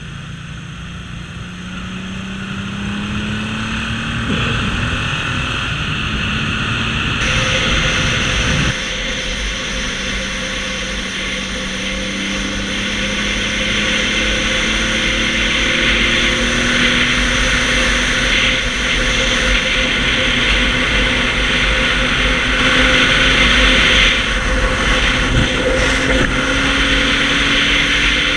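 1979 Yamaha XS750's inline-three engine through a MAC 3-into-1 exhaust, running while the bike is ridden, its pitch climbing slowly as it gathers speed, with heavy wind rush over the microphone. The sound changes abruptly about nine seconds in.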